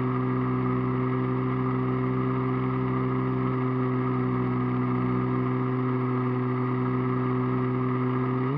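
Radio-controlled model airplane's motor and propeller, heard from the onboard camera, running at a steady cruise throttle with a constant droning pitch.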